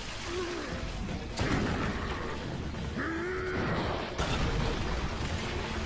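Anime fight-scene sound effects: a dense bed of crashes and mechanical noise with sharp impacts about a second and a half in and again about four seconds in.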